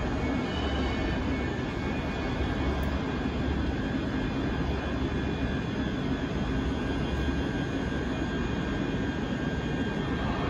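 Class 37 diesel-electric locomotive's English Electric V12 engine running steadily, with a low rumble under a steady high turbocharger whistle.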